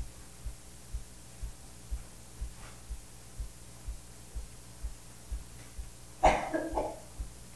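A single cough about six seconds in, over faint, even low thumps about twice a second.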